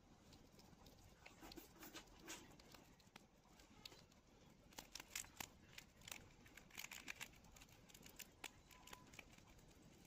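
Sugar glider chewing a cicada: faint, irregular crunching and crackling of the insect's shell, in quick clusters around the middle.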